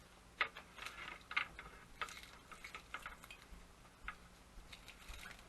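Irregular light clicks and scrapes as electrical cable is pulled through a plastic wire-stripping tool, its safety blade slitting the outer sheathing.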